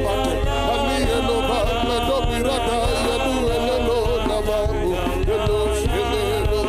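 Worship music playing steadily: sustained keyboard chords over a low bass, with wavering voices singing or vocalising over it.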